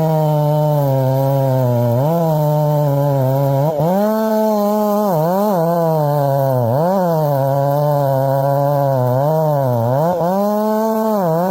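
Chainsaw running at high revs while cutting wood. The engine note repeatedly sags and climbs back as the bar bites and eases through the cut.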